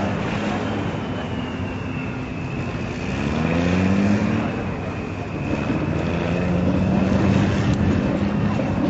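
M35 6x6 army truck's engine pulling off-road, rising in pitch about three seconds in, easing off, then pulling steadily again, with a thin steady high whine above it.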